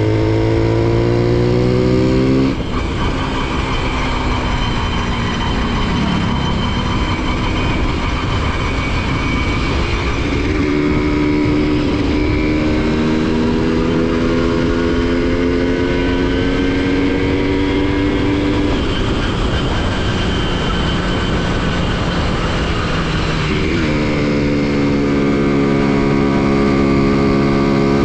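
Honda CDI-100 100cc single-cylinder four-stroke motorcycle engine running under way. Its note climbs in pitch again and again, with a sudden drop about two and a half seconds in and a long climb again near the end.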